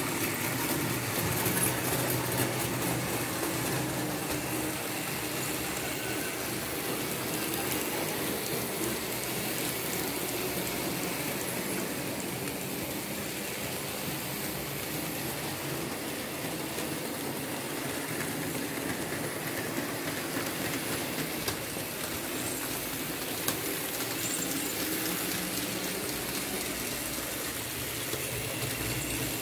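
Märklin H0 model trains running on an analog layout: a steady whir of the locomotive motors and the running noise of the wheels on the metal track.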